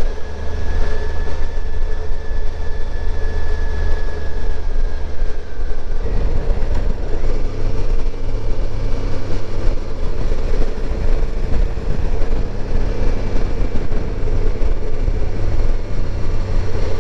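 Suzuki V-Strom motorcycle engine running steadily under riding, mixed with wind noise on the mount-mounted microphone; the engine note shifts about six seconds in.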